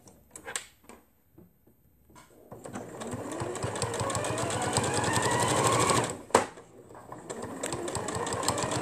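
Electric domestic sewing machine stitching through fabric, its motor whine rising in pitch as it speeds up. It stops briefly about six seconds in with a sharp click, then starts again and speeds up near the end.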